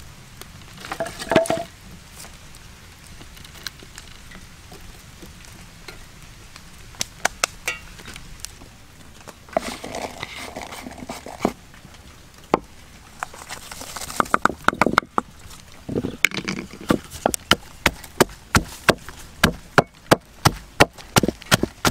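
Knife chopping on a wooden board: scattered chops at first, then from about two-thirds of the way in a steady run of sharp chops, two to three a second. Brief rustling noise comes in between.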